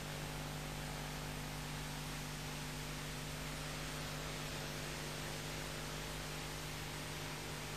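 Steady electrical mains hum with hiss on an old videotape soundtrack, unchanging throughout.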